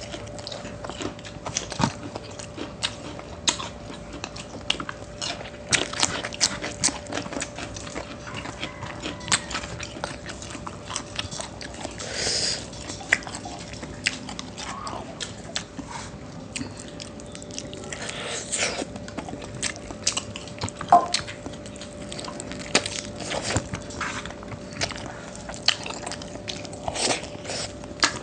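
Close-up eating sounds: chewing and biting into chicken and pork adobo with rice, with many short sharp clicks and smacks throughout. A faint steady hum runs underneath.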